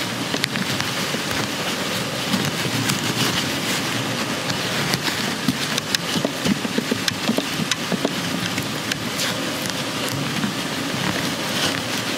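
Close-miked rustling and crinkling of cotton fabric, with irregular small ticks and crackles, as a needle and thread are worked through the scrunchie's gathered cloth in hand stitching.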